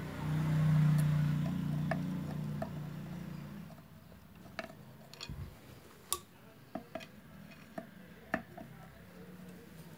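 Small metal clicks and ticks at uneven intervals as the hook assembly of a Juki DDL-8700 industrial sewing machine is handled and set in place. A steady low hum fades out in the first few seconds.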